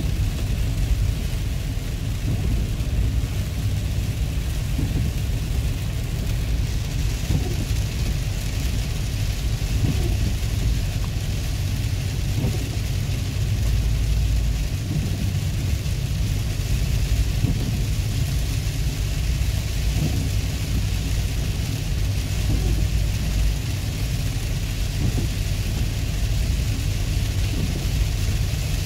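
Car cabin noise while driving in heavy rain: a steady low rumble of the car and its tyres on the wet road, with the hiss of rain on the car.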